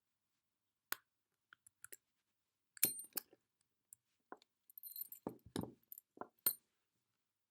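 Light metallic clicks and clinks of lock picks and a lock being handled: a few single clicks, a cluster of clinks about three seconds in, and a run of them near the end.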